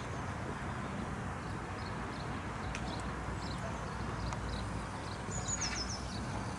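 Outdoor background noise with a steady low rumble, a few faint bird chirps, and a short high bird call of quick falling notes about five seconds in.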